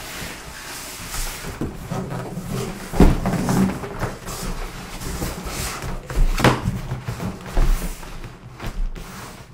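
A large cardboard box, holding a PC case, being handled on a wooden table: cardboard rubbing and scraping as it is lifted and turned, with a few dull thumps, the loudest about three seconds in.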